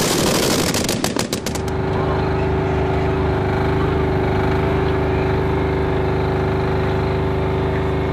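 A rapid burst of fire from a BOV-3 triple 20 mm anti-aircraft gun for the first second and a half or so. Then a steady vehicle engine hum with a constant pitch.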